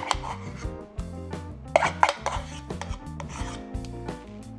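A metal spoon scraping and knocking against bowls as cream quark is spooned into a stainless steel mixing bowl, with the loudest knocks about two seconds in. Background music plays underneath.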